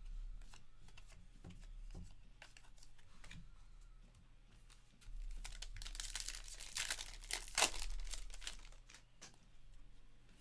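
Crinkling and tearing of a foil 2022 Bowman Draft Lite baseball card pack being opened by hand, loudest from about five to eight seconds in. Before that come lighter clicks and slides of cards being handled.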